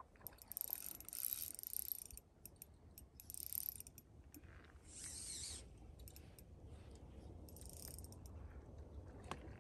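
Spinning reel being cranked as a hooked fish is played, a mechanical ratcheting whir that comes in bursts of about a second, with small clicks between.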